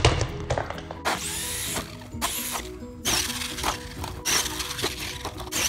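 Background music over a hobby RC truck's sounds: knocks and clatter as it flips and tumbles, and several short high motor whines that rise and fall.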